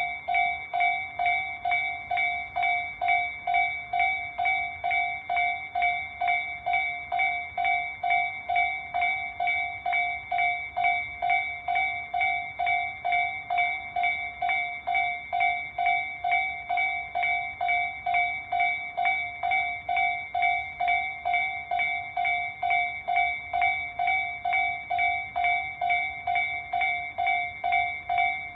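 Japanese railway level-crossing warning bell, the electronic Tobu Tojo-type tone, ringing steadily at about two strikes a second.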